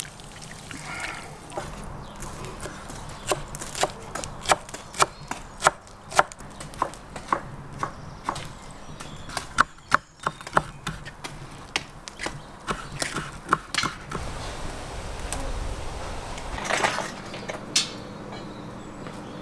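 Knife chopping on a wooden cutting board: uneven sharp knocks, about one or two a second, with a short break about ten seconds in.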